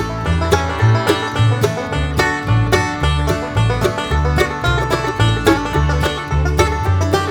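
Background music: an upbeat banjo-led bluegrass-style tune with plucked strings over a steady bass line.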